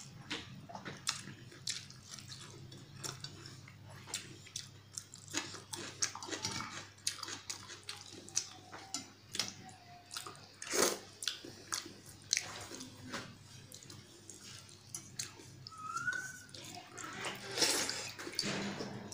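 Close-up eating sounds: wet chewing and lip-smacking clicks while pakhala, rice soaked in water, is eaten by hand. There are watery squishes as fingers scoop the rice from its water, loudest near the end.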